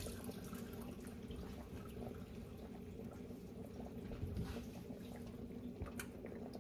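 Quiet kitchen room tone with a steady low hum and a few faint knocks and rustles; near the end hands are handled with a paper towel.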